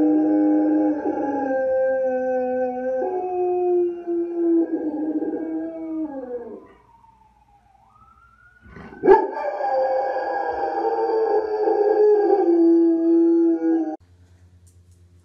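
Dog howling: a long held howl that slides down and fades out, then after a short pause a rising start into a second long howl that breaks off suddenly near the end.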